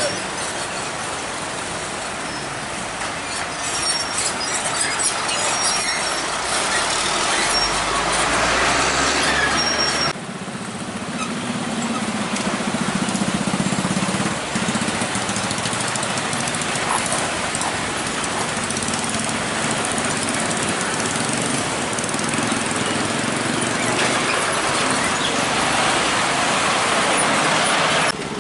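Road traffic with heavy trucks, cars and motorbikes driving past at close range: a steady mix of engine and tyre noise, changing abruptly about ten seconds in.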